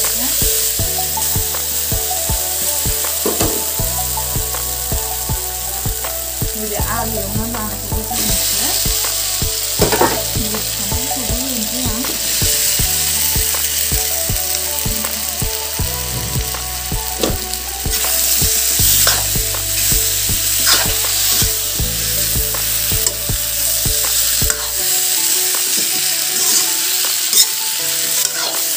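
Onion-and-spice masala sizzling as it fries in a metal kadai, with a steel spatula stirring and scraping against the pan. Partway through, jackfruit pieces are added and stirred in. Background music with a bass line plays underneath until near the end.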